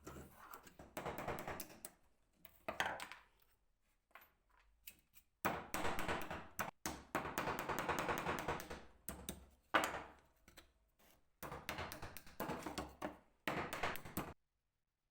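Hand work on a wooden stool: bursts of scraping or rubbing against wood, peppered with small taps and knocks, with pauses between them. The sound stops abruptly about a second before the end.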